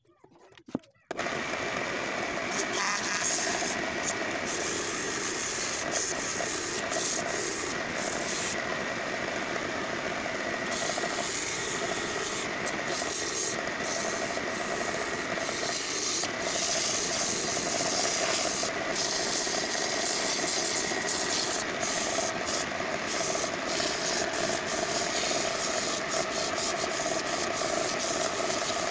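Sandpaper rubbing against a turned wooden table leg as it spins on a simple wood lathe, a steady sanding hiss over the hum of the lathe's motor. It starts abruptly about a second in.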